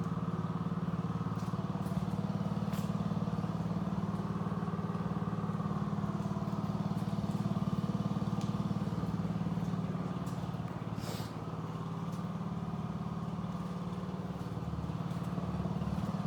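A vehicle engine idling steadily, its level dipping briefly about eleven seconds in, with a few faint clicks.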